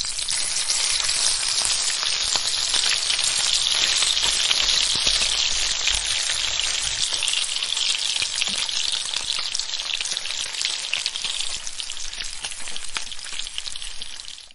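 Steady rain falling, a dense crackling hiss of countless small drop patters, fading out just at the end.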